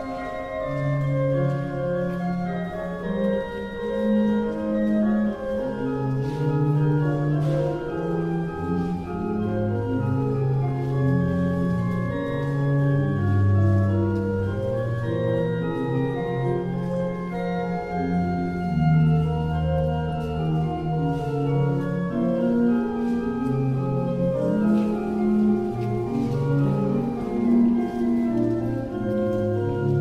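Organ playing slow, held chords that change every second or so over a moving bass line.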